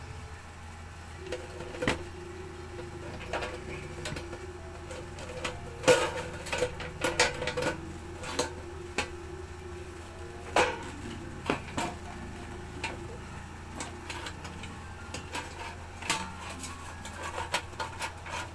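Clicks, knocks and rattles of a portable power station's case and inner parts being handled and opened by hand, irregular, with the sharpest knocks about 6 s and 10.5 s in, over a steady low hum.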